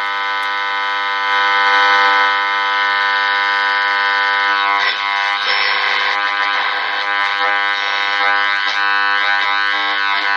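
HMV Little Nipper valve radio's loudspeaker giving a steady buzzing tone, then from about five seconds in, whistles sliding up and down as the tuning dial is turned between stations.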